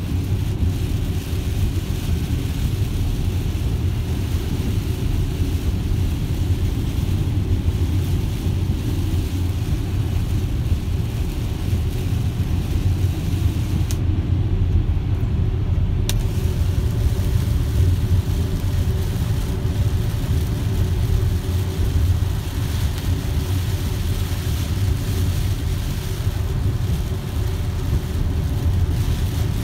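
Heard from inside a Tesla electric car cruising at about 50 mph through heavy rain: a steady low rumble of tyres on the soaked highway, with the hiss of rain on the windshield over it. The rain hiss drops out for about two seconds midway while the car passes under an overpass.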